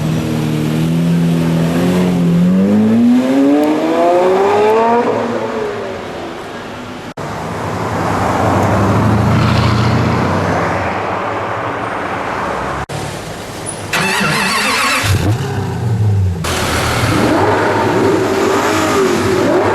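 Supercar engines accelerating hard, in several short clips cut together. In the first, one engine's note climbs steadily for about five seconds as the car pulls away. Later clips carry more engine noise and a further rising rev near the end.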